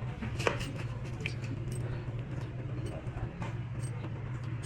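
Scattered light metallic clicks and taps of small valve-spring washers being set in place on a Toyota Corolla 2E cylinder head, the sharpest about half a second in, over a steady low hum.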